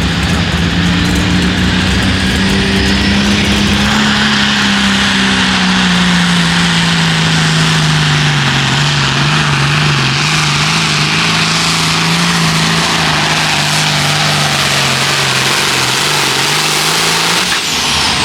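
Hot Farm class pulling tractor's diesel engine running hard and loud under load on a pull. Its pitch climbs for a few seconds, then slowly sags as the load bogs it down, and it lets off near the end.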